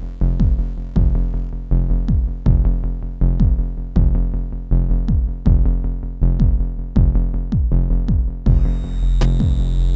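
Electronic sci-fi soundtrack music: a steady drum-machine beat of deep kicks that drop in pitch and sharp clicks, over a low synth drone. A hissing high synth layer comes in near the end.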